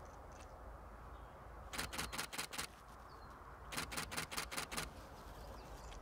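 Camera shutter firing in two rapid bursts of about six clicks each, roughly six or seven a second, one burst about two seconds in and another about four seconds in.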